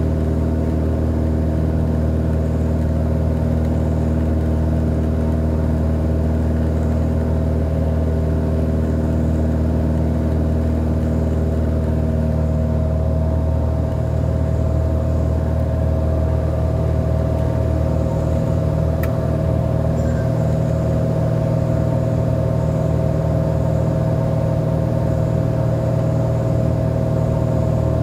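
Cessna 182R Skylane's six-cylinder Continental O-470 piston engine and propeller droning steadily in flight, heard inside the cabin. The drone's low tone shifts slightly about halfway through, and a single sharp click comes about two-thirds of the way in.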